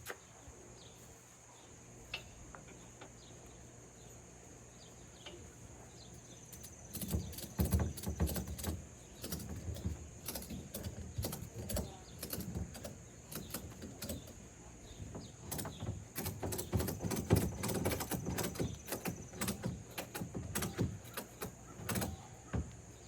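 Ratchet strap being cranked tight: rapid clicking and rattling of the ratchet handle in repeated strokes, starting about seven seconds in and going on in bursts until near the end.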